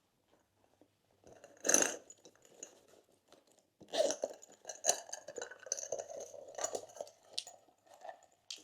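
Slime with crunchy add-ins being squeezed and mixed by hand, giving irregular crackles and crunches. One loud crunch comes just under two seconds in, then a dense run of crackling from about four seconds in.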